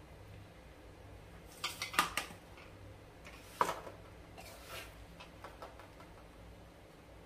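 Plastic ladoo mould clicking and knocking against steel dishes as churma is packed into it and turned out. There is a quick cluster of clicks about two seconds in and a single sharper knock a little later, then softer scraping of the crumbly mixture.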